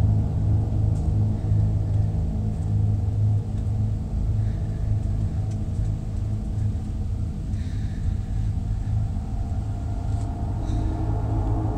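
Low, steady rumbling drone of ominous horror-style background music, holding the same deep tones throughout, with a few faint ticks.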